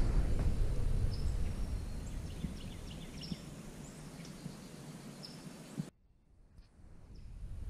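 Outdoor ambience: a low wind rumble on the microphone that fades over the first few seconds, with a few faint, short, high bird chirps scattered through it. The sound cuts out for about a second near the end.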